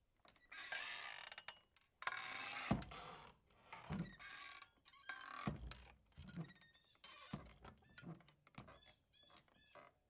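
Revolving door being turned: long swishing rushes at first, then a series of dull thumps, and short high squeaks over the last few seconds.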